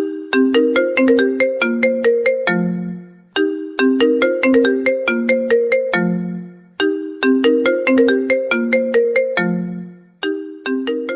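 Mobile phone ringtone: a short melody of struck, quickly fading notes, repeating about every three and a half seconds.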